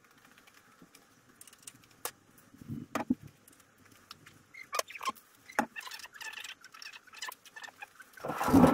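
Scattered footsteps, knocks and clicks of people moving about a garage floor, with a louder scuffing thump near the end.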